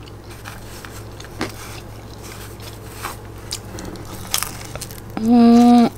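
Quiet chewing and mouth clicks from a person eating cheese pizza on naan bread. Near the end comes a held, steady-pitched hum of the voice lasting under a second.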